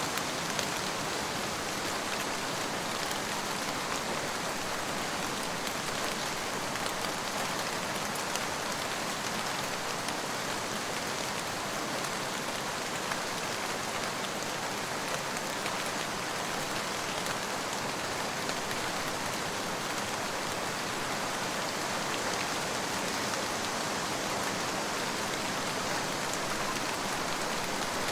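Steady rain falling, a dense even hiss of drops on a surface with fine scattered patter, unchanging throughout.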